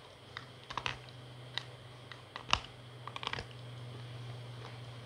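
Close-up crunching of teeth biting into a hard, dry, powdery chunk of dried paste: sharp, irregular crackles, the loudest about halfway and a quick run of crunches a little after three seconds. A steady low hum runs underneath.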